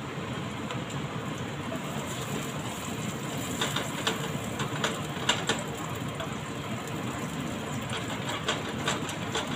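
Garlic and ginger sizzling in hot oil in a nonstick frying pan. From about three and a half seconds in, a plastic spatula clicks and scrapes against the pan as they are stirred.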